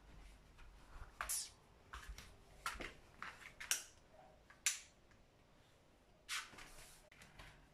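Faint scattered clicks and rustles, about one a second, with a longer rustle a little past six seconds in.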